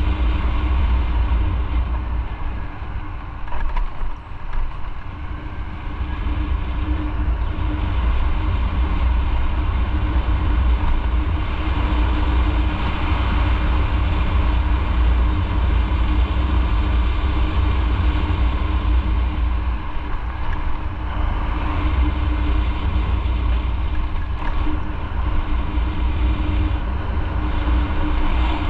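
Motorcycle on the move, its engine running steadily under a heavy low rumble. The level drops briefly a few seconds in.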